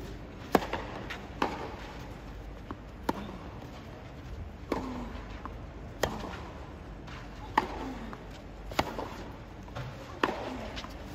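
Tennis rally: a serve and then about eight sharp racket strikes on the ball, alternating between the two players roughly every second and a half.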